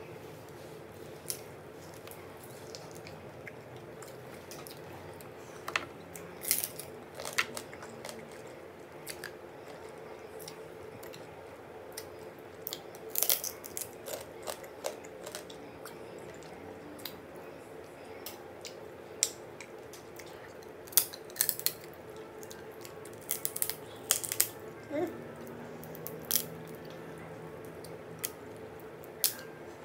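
Close-miked eating of a boiled blue crab in spicy sauce: irregular sharp cracks and clicks from the shell being picked apart, with wet sucking and chewing sounds as meat is drawn from the legs.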